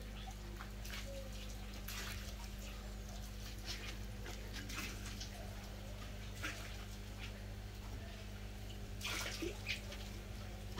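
Scattered small splashes and plops of catfish rising at the water's surface to take sprinkled feed, a few at a time, with a cluster of them about nine seconds in, over a steady low hum.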